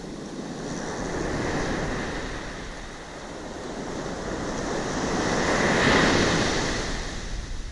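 Ocean surf breaking and washing up a sand beach in two swells, a smaller one about a second in and a louder one later.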